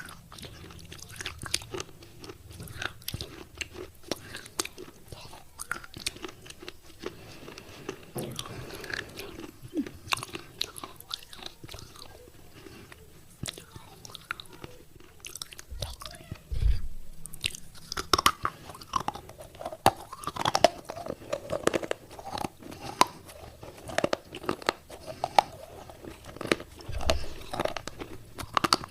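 Wet clay pot pieces being bitten and chewed close to the microphone, with many sharp crunches throughout that come thicker and louder in the second half. Two dull low thumps are heard, one just past halfway and one near the end.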